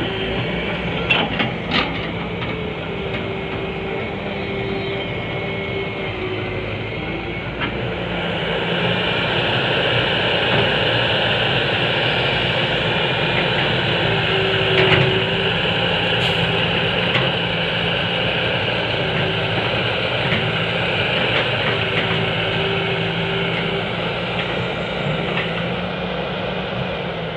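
Fiat-Hitachi excavator's diesel engine running steadily while working, growing louder about eight seconds in, with a few sharp knocks near the start and midway.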